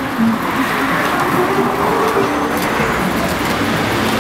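City street traffic: a car driving past, its tyre and engine noise rising and then fading over a couple of seconds.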